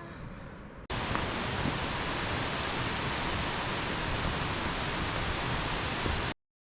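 Steady loud rushing noise with no distinct events, starting abruptly about a second in after a fainter hiss with a thin high tone, and cutting off abruptly near the end.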